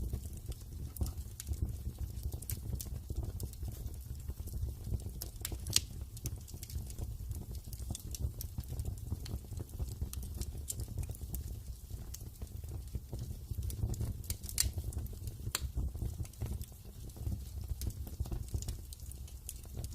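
Wood fire burning in a fireplace: irregular sharp crackles and pops over a steady low rumble, with a couple of louder pops about six and fifteen seconds in.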